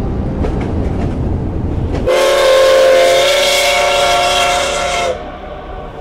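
A train rumbles along with a low clatter. About two seconds in, a loud train whistle sounds as a steady chord of several tones for about three seconds, then cuts off sharply, leaving a quieter rumble.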